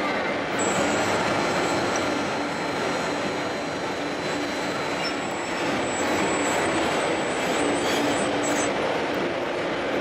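High, steady whine of a radio-controlled tipper truck's hydraulic pump as the trailer's dump body tips up, starting about half a second in and stopping near the end, over the dense murmur of a crowded exhibition hall.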